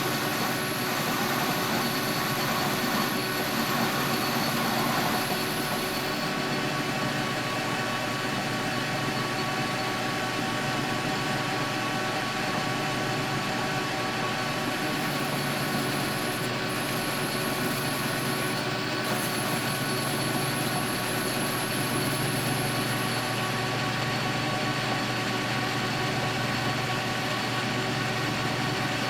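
Metal lathe running with a steady hum; a faint high whine comes and goes.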